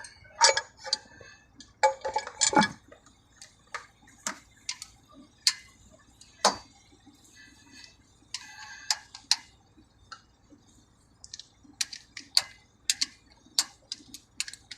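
Loose metal engine parts and hand tools being handled, clinking and clicking at irregular intervals, with a few brief runs of ringing metallic clinks.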